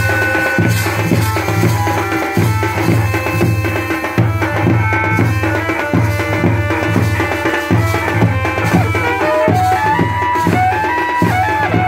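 Traditional Uttarakhand wedding band music: dhol drums beating a steady rhythm, about two strokes a second, under a wind instrument playing a melody of held notes that step up and down, rising in a run near the end.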